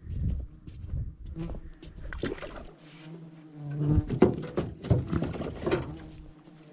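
Wind buffeting the microphone, then a run of knocks and clatter in a small boat between about four and six seconds in, over a steady buzz of flies.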